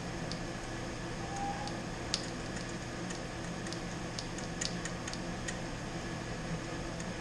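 Walbro 255 electric fuel pump under 12 volts humming steadily without running up, with a few faint ticks scattered through: the pump motor is trying but is locked up.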